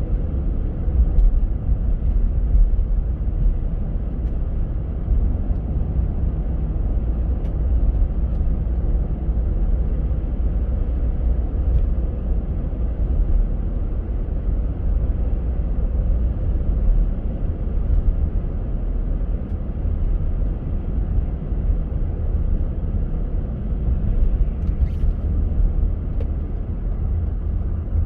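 Steady low rumble of a car being driven: road and engine noise, with a few faint clicks now and then.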